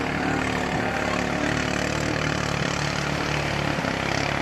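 Racing bangka's engine running at a steady pitch as the boat speeds offshore, with surf washing at the shore.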